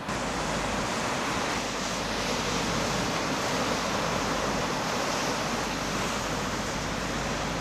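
Ocean surf breaking and rushing in a steady roar, with wind rumbling on the microphone.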